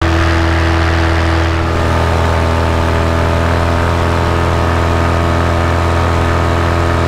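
Small propeller aircraft's engine running steadily at constant cruise power, an even drone with no change in pitch.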